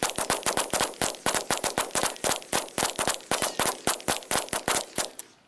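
Two semi-automatic .22 rifles fired rapidly together, a fast uneven string of sharp cracks at several shots a second that stops about five seconds in.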